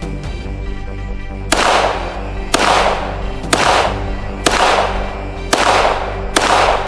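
Six gunshots fired at a steady pace about a second apart, each with a short echoing tail, over background music.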